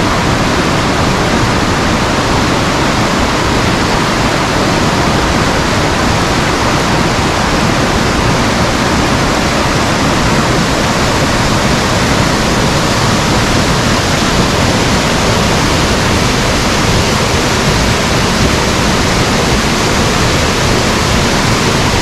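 Waterfall: a steady, loud rush of falling water with no change in level.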